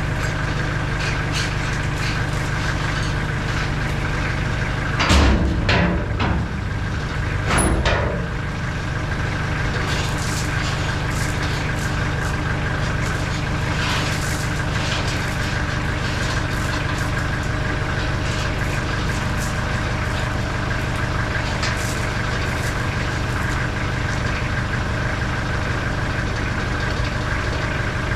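Engine of a Moffett Mounty truck-mounted forklift idling steadily while crushed rock slides and clatters out of its tipped steel hopper, loudest twice, about five and eight seconds in, with scattered clicks of falling gravel.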